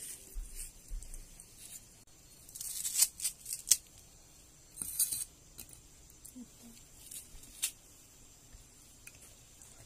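Dry red onion skin crackling and tearing as it is peeled and cut with a knife, in a few short bursts with sharp clicks between.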